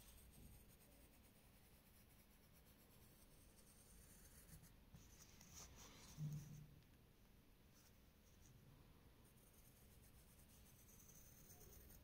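Faint pencil scratching on paper as an outline is drawn, at near-silent level. A brief low hum comes about six seconds in.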